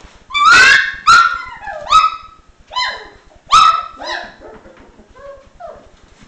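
One-month-old Dalmatian puppy yipping: about six high yips in the first four seconds, each dropping in pitch, followed by a few softer whimpers.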